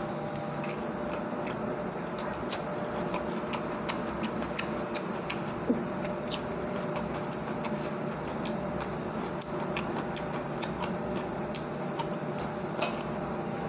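Close-up eating sounds: chewing a mouthful of rice and fish curry, with many sharp wet mouth clicks and lip smacks at an irregular pace of a few a second. A steady hum runs underneath.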